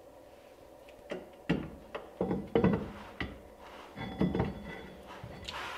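Metal brake hub parts of a Porsche 356A front drum brake clicking, knocking and rattling as they are fitted by hand at the centre of the hub: a string of irregular clinks starting about a second in, loudest two to three seconds in, with a brief metallic ring.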